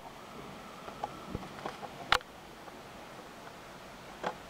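Heavy rain: a steady hiss with scattered sharp ticks and taps of drops, the loudest a little after two seconds in.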